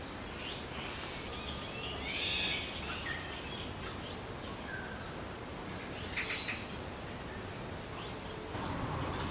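Wild birds chirping now and then, short separate calls over a steady low background hiss that grows a little near the end.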